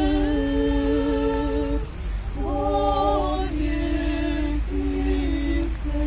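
A small group of women singing a cappella in unison, slow phrases of long held notes with brief breaks between them.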